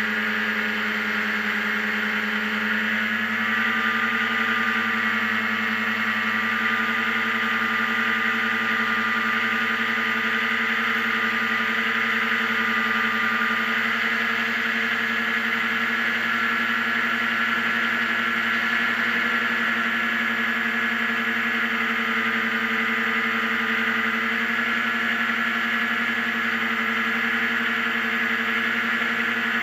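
Racing hovercraft's engine and thrust fan running at high, steady revs, heard from on board; the pitch rises a little about two to three seconds in, then holds.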